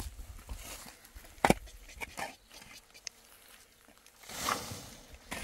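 Metal spade working stony soil: one sharp strike of the blade about one and a half seconds in, a few lighter knocks, then a spadeful of dirt thrown and scattering with a short rushing hiss near the end.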